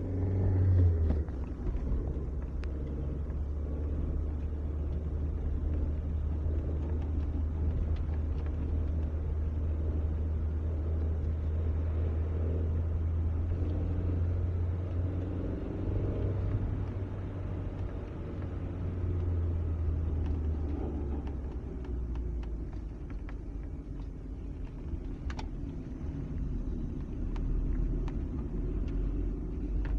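Mazda Premacy 1.8 four-cylinder petrol engine running steadily, with a metallic knocking from the left side of the engine. The knock goes away when the clutch pedal is pressed.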